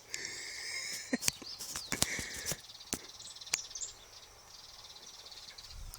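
Birds calling over a high insect chirr, with a few sharp clicks and knocks scattered through.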